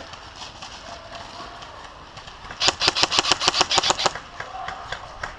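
Airsoft rifle firing a full-auto burst, a rapid string of sharp cracks at about ten shots a second lasting about a second and a half, roughly halfway through. Scattered single clicks and shots come before and after it.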